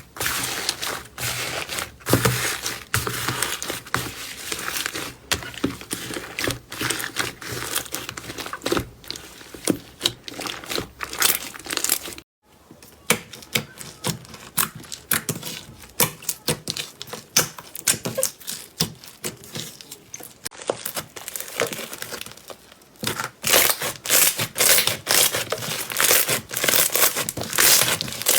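Slime being squeezed, poked and stretched by hand, giving a dense run of crackling, popping clicks. The sound breaks off for a moment about twelve seconds in and starts again, louder in the last few seconds.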